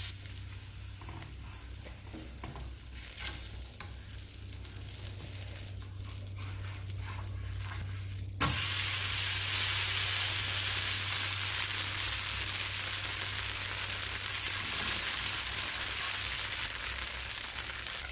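Adai batter frying in oil on a hot nonstick dosa tawa: a quiet sizzle with a few light spatula taps, then about eight seconds in, as the pancake is turned over, a loud, steady sizzle starts suddenly and keeps going.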